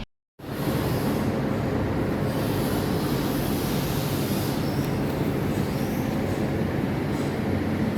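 Heavy machinery running with a steady loud rumble and a few faint squeals, starting suddenly after a brief silence.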